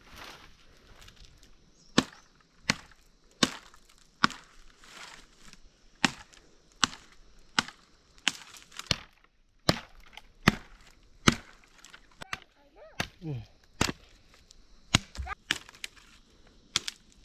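Repeated chopping blows with a woody knock, spaced fairly evenly at about one every three-quarters of a second, with a few short pauses between runs.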